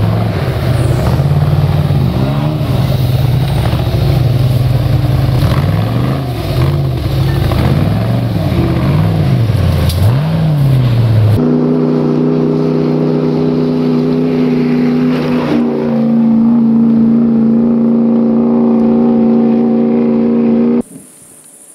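Off-road competition vehicle's engine revving up and down over and over as it works through deep mud. After an abrupt change about halfway through, the engine holds steady high revs. The sound falls away about a second before the end.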